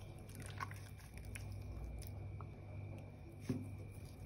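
Soft wet squelches of raw beef spleen and chicken feet being handled and set into a bowl by a gloved hand, with a sharper knock about three and a half seconds in, over a steady low hum.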